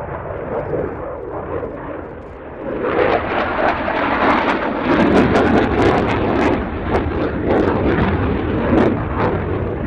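Dassault Rafale fighter's twin Snecma M88 jet engines as the jet flies by. The noise swells about three seconds in and is loudest and crackling through the middle.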